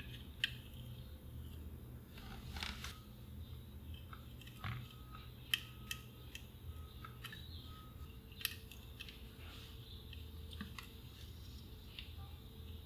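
Soldering iron and copper desoldering braid wicking solder off the negative lead of an old electrolytic capacitor on a circuit board: a faint crackle with scattered sharp clicks and taps as tip and braid touch the board.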